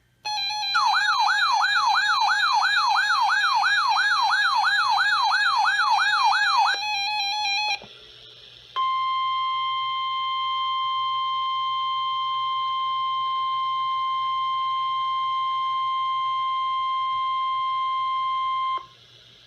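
Weather alert radio sounding its alarm: a warbling siren tone swinging up and down about four times a second for roughly six seconds. After a short gap comes the steady 1050 Hz NOAA Weather Radio warning alarm tone, held for about ten seconds, which signals that a warning broadcast follows.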